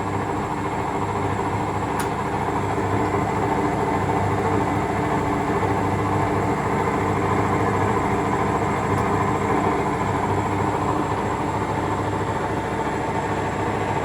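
Hoover Electra 535 Dual Spin washing machine in its final spin, running at its single fixed spin speed: a steady whirr with a motor hum, swelling slightly over the first few seconds.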